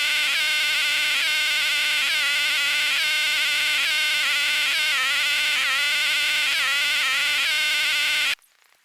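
A loud, steady buzzing tone, evenly pitched with a slight wobble about twice a second, that cuts off abruptly near the end: an unwanted noise that would not go away.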